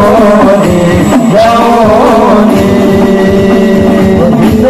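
Hadroh ensemble performing sholawat: several men singing an Arabic devotional melody in unison through a PA, bending the line and then holding a long note, over a quick, dense beat of frame drums.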